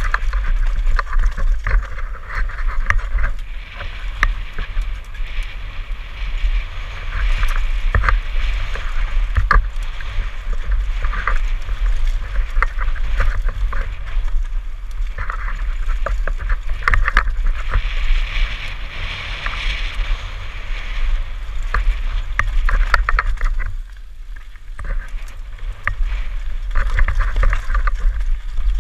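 Mountain bike running fast down a rough dirt-and-gravel trail: a steady low wind rumble on the helmet-mounted camera's microphone, tyres rolling over loose stones, and frequent sharp clicks and knocks from the bike rattling over the bumps.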